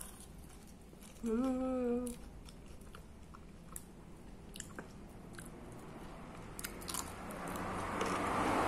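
Close-up chewing of lettuce and chicken, with wet mouth clicks and a short hummed 'mmm' about a second in. A broad rushing noise swells up near the end.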